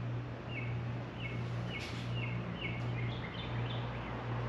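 A small bird calling, a series of short falling chirps about two a second, over a steady low hum.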